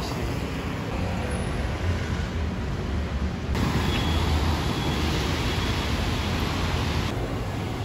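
Street traffic: cars and scooters passing on a wet city road. About three and a half seconds in it cuts to a louder, hissier stretch of traffic, which cuts back to a quieter one near the end.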